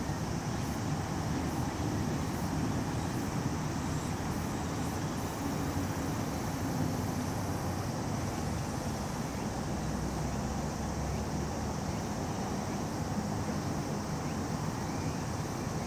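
Steady low background rumble with a faint hiss above it and no distinct events.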